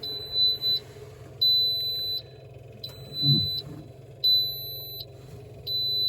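A skid steer's cab warning buzzer beeping steadily: five high, even beeps, each a little under a second long, about one every one and a half seconds, with the ignition switched on and the seatbelt not yet fastened.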